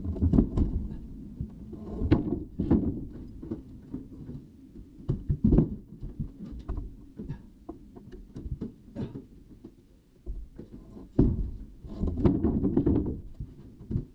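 Rough-sawn wooden half logs being heaved up and dropped onto the board deck of a barn loft: a string of irregular heavy wooden thuds and knocks, the loudest about two seconds in, about five and a half seconds in and about eleven seconds in.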